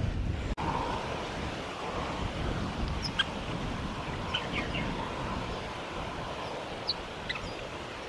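White-plumed Honeyeaters at the nest giving a few short, high chirps in small clusters, starting about three seconds in.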